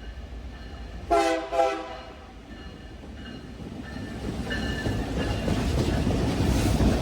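Union Pacific locomotive's air horn sounding one short blast about a second in. It is followed by the rumble of the approaching train, growing steadily louder.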